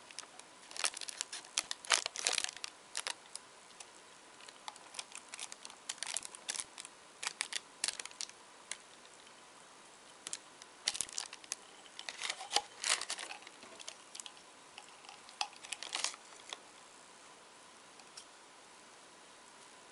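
Thin tissue paper crinkling and rustling in irregular bursts as fingers press and smooth it onto a glue-coated glass jar.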